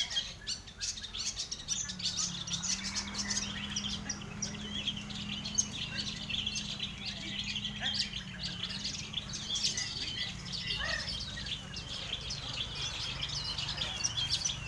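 Several long-tailed shrikes (cendet) singing and chattering at once in dense, overlapping rapid chirps and trills, the din of a songbird contest, with a low steady hum underneath.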